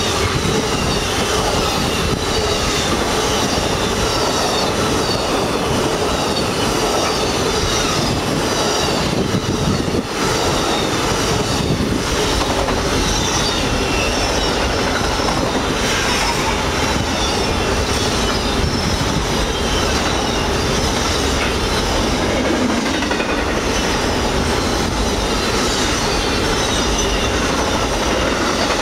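Amtrak Auto Train passing at speed, its bi-level Superliner coaches and then enclosed autorack car carriers rolling by. The wheels rumble steadily on the rails, with clickety-clack over the rail joints and some high wheel squeal.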